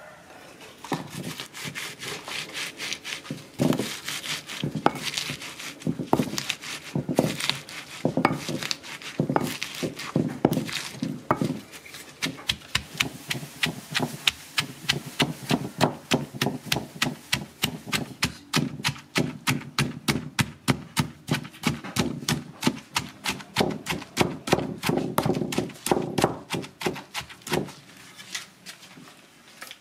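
Wooden pestle pounding and grinding chilies, shallots and salt into spice paste in a heavy stone mortar. Dull wooden knocks with grinding rubs, uneven at first, then a fast, steady run of strikes several times a second from about twelve seconds in.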